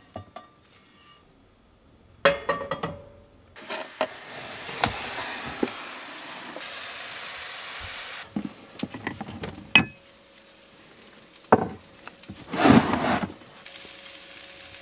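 Kitchen cooking sounds: a frying pan is taken off its hanging hook with a few metal clanks, then ground meat sizzles in a nonstick frying pan on a gas stove. A spatula knocks and scrapes in the pan, loudest near the end.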